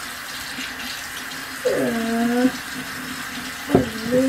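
Bathroom sink tap running steadily into the basin. A short voice sound comes about two seconds in, and there is a sharp knock near the end.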